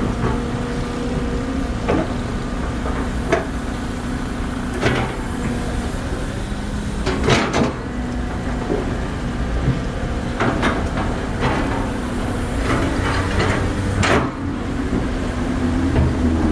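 Excavator engine running steadily, with sharp clanks and knocks every second or two, irregularly spaced.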